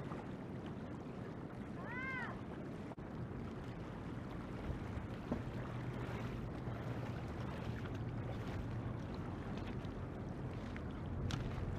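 Steady outdoor noise of river water and wind on the microphone, with one short high call that rises and falls about two seconds in.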